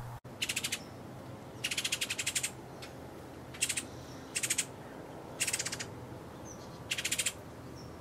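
Hooded orioles giving dry, rattling chatter calls: about six short bursts of very fast clicks, roughly one a second. The calls come as one oriole flutters and begs to be fed by another.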